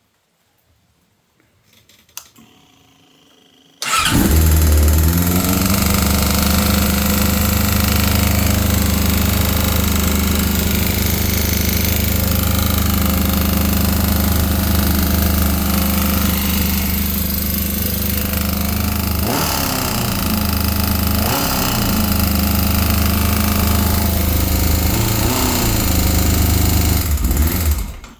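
A 2001 Yamaha R6's 600 cc inline-four engine catches about four seconds in and runs at idle with an extremely loud clattering knock, with a few brief throttle blips later on, then is switched off. The noise comes from a connecting rod bearing that has lost its bearing shell.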